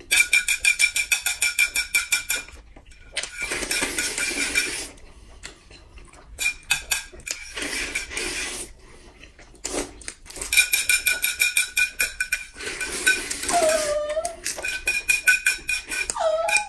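Noodles being slurped loudly in long drawn-out pulls, each a fast fluttering rattle with a whistling edge, about six times with short pauses between. A brief hummed 'mm' near the end.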